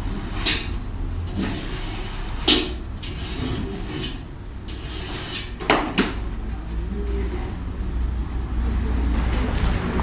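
A steady low rumble with a few sharp knocks over it, the loudest about two and a half seconds in and a close pair near six seconds.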